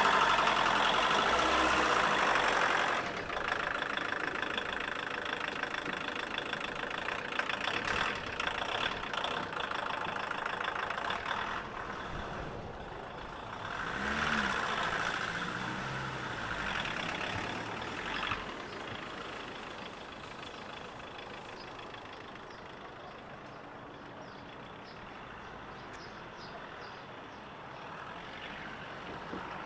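1982 Volkswagen Caddy pickup's 1.6-litre diesel engine running as the truck backs out and drives off, loud at first, dropping sharply about three seconds in, swelling briefly mid-way and then fading into the distance.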